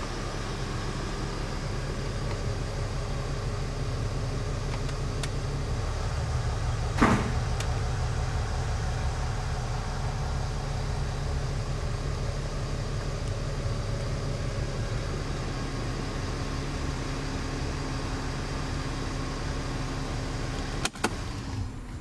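Mercedes R350's V6 engine idling steadily, heard from inside the cabin, with one brief sharp noise about seven seconds in. The engine sound stops suddenly about a second before the end.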